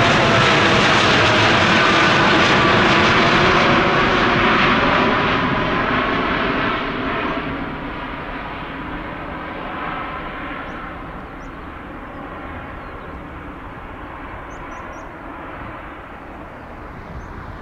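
Boeing 787-8's twin jet engines at takeoff thrust as the airliner climbs away: a loud roar with falling tones at first, fading steadily from about five seconds in as the high end dies away.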